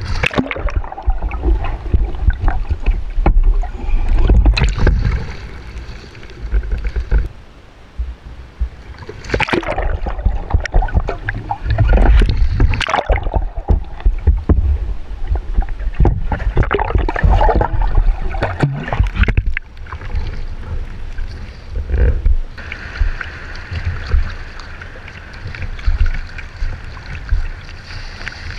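Water rushing and sloshing around a Greenland kayak as it capsizes and is rolled back up, with muffled underwater rumbling and sharp knocks against the hull while submerged. For the last several seconds it gives way to a steadier hiss of splashing water and wind with the kayak upright.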